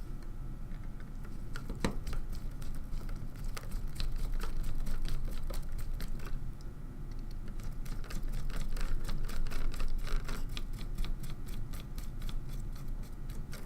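Two small screws being driven in to fasten a circuit board onto plastic standoffs: quick light clicks and ticks in two spells, over a low steady hum.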